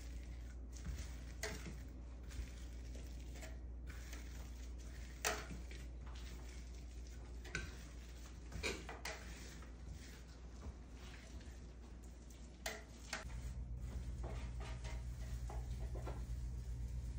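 A clear plastic trowel spreading silk plaster on a wall: soft scraping with scattered sharp clicks as the trowel edge meets the wall, over a steady low hum that gets louder near the end.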